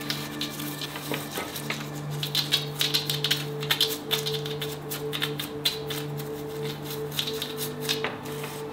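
Small brush scrubbing dirt from the engine case around a motorcycle's shift shaft: a quick, uneven run of scratchy strokes, over background music.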